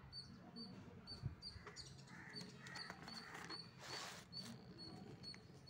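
Paper notebook pages being flipped, a short rustle about four seconds in, over a quiet background with a soft thump early and a faint high tick repeating less than once a second.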